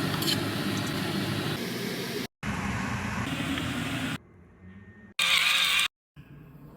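Food sizzling in a hot frying pan, heard in several short cut-together stretches, with a brief louder, brighter burst of sizzling about five seconds in.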